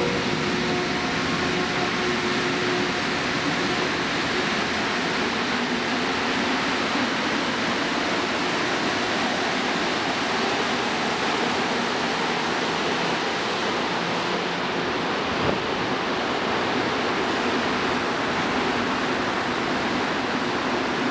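Steady rushing noise of a rubber-tyred Montreal Metro train moving along the station platform, with faint humming tones that fade out after about six seconds.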